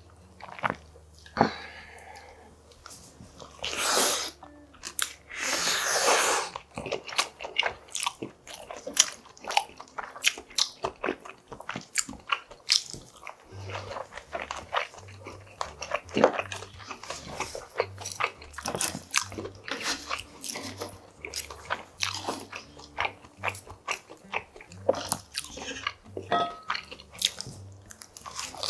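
Close-up eating sounds of a person having sashimi cold noodles (hoe-naengmyeon): two long slurps about four and six seconds in, then steady wet chewing with many short sharp mouth clicks and smacks.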